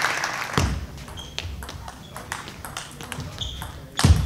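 Table tennis rally: the ball ticks sharply off the bats and the table in a quick, uneven string of hits, with a louder knock near the end. Applause fades out at the very start.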